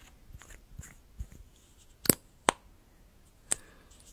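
A plastic liquid lipstick tube and its cap handled close to the microphone, giving a few sharp clicks and taps, with the three loudest about two, two and a half and three and a half seconds in.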